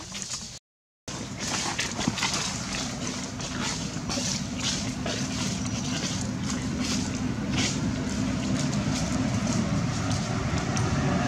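A motor vehicle's engine rumbling low and steady, growing gradually louder toward the end, with scattered light clicks over it.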